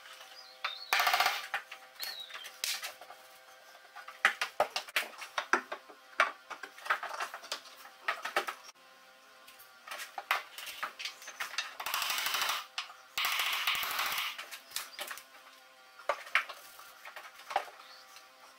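Makita 18-volt cordless impact driver driving screws in short rattling bursts, the longest pair about twelve to fourteen seconds in, with scattered knocks and taps of timber between.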